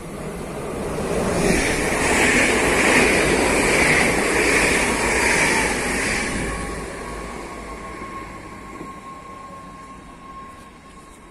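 A train passing: rumble and rail noise build up, stay loud for a few seconds, then fade away, with a thin steady whine lingering as it draws off.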